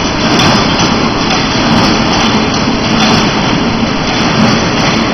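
Steel wire mesh welding machine running: a loud, steady mechanical noise.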